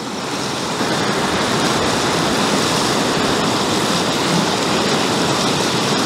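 Steady rushing of river rapids, swelling up over the first second and then holding even.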